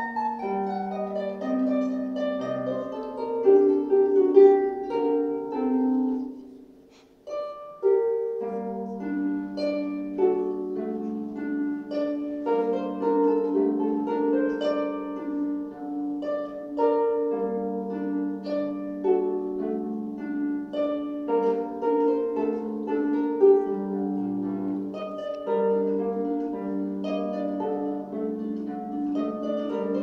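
Concert harp played solo: a dense stream of quickly plucked notes over a bass line. The playing thins out and drops away for a moment about seven seconds in, then picks up again and runs on.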